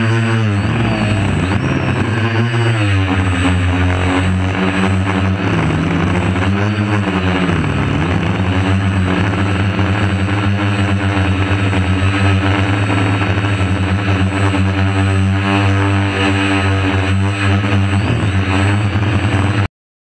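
DJI F450 Flame Wheel quadcopter's four 2212 brushless motors and propellers running, heard from the GoPro mounted on the quadcopter itself: a loud, steady hum whose pitch wavers up and down every couple of seconds. It cuts off suddenly near the end.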